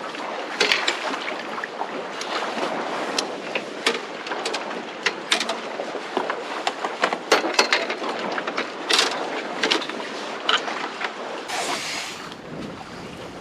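Wind-driven chop slapping a small fishing boat's hull, with many irregular sharp knocks and clatter, and a louder gust of noise near the end.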